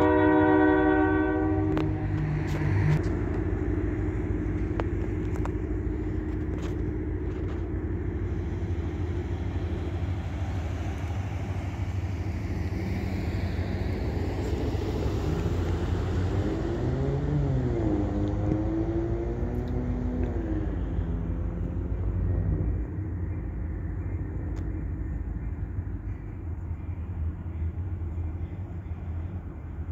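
Train horn ending about a second and a half in, followed by the steady low rumble of the diesel locomotive down the street track, with some rising and falling tones in the middle; the rumble drops and fades after about three-quarters of the way through.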